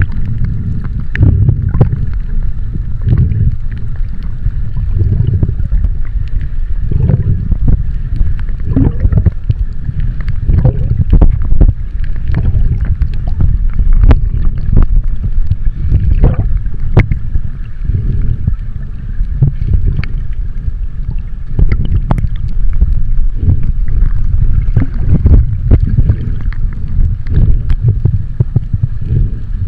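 Water moving against a camera in the sea: a steady low rumble with irregular sharp clicks and splashes.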